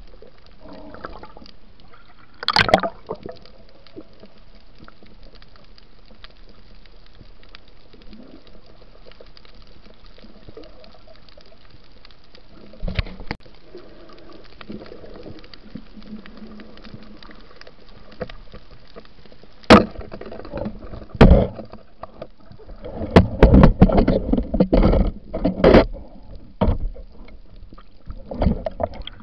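Water sounds picked up by a spearfisher's underwater camera: a steady muffled hiss of moving water, broken by loud sudden bursts of bubbling and splashing, a few single ones, then a dense run of them about three quarters of the way through.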